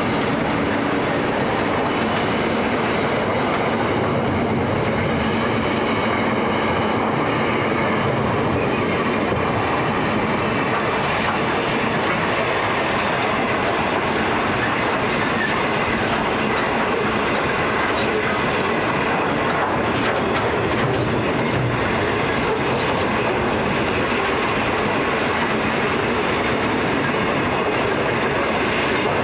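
A long freight train of steel wagons and container flats rolling steadily past, its steel wheels running on the rails in a continuous, unbroken rumble.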